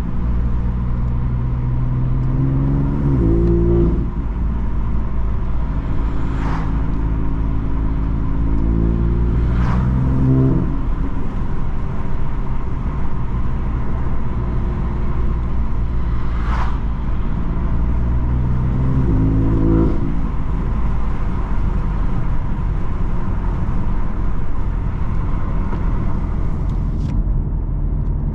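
BMW M3 F80's twin-turbo straight-six with M Performance exhaust, heard from inside the cabin, accelerating through the gears: the pitch climbs and drops at upshifts about 4 and 10 seconds in, then the engine runs steadily, with another short pull near 20 seconds. A few brief sharp clicks sound over it.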